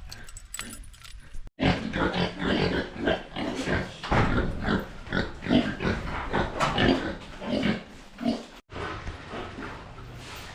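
Pigs grunting over and over, many short calls close together, with a sudden break about a second and a half in and again near the end.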